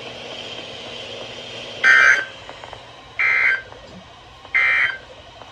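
Emergency Alert System end-of-message signal: three short bursts of rapid two-tone data chirps (the SAME 'NNNN' end-of-message code), about a second and a half apart, marking the end of the alert broadcast.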